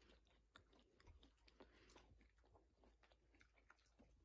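Dogs chewing macaron crumbs picked up off the floor: faint, quick, irregular clicks of eating.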